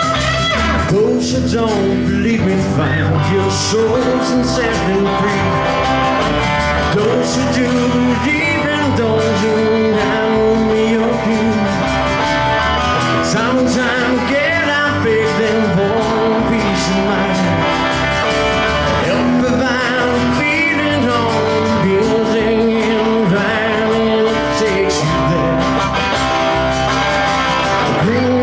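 Live trio of upright bass, acoustic guitar and electric guitar playing a Southern rock song, with bending melody lines over a steady bass.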